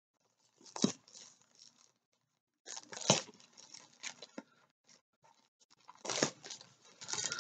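Plastic bubble-mailer tube crinkling and rustling in the hands as it is gripped and twisted to get it open, with three sharper cracks about one, three and six seconds in.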